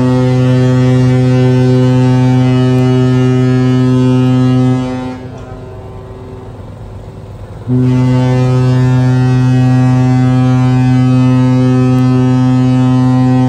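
Deep horn of the passenger ship KM Lawit sounding its departure signal. One long blast stops about five seconds in, and after a pause of about three seconds a second long blast begins, echoing across the harbour.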